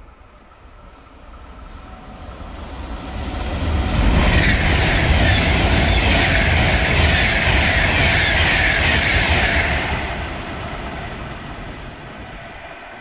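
An Avanti West Coast express train passes at speed: the rush of wheels on rail and air builds over about four seconds, stays loud for about six, then fades as the train goes by.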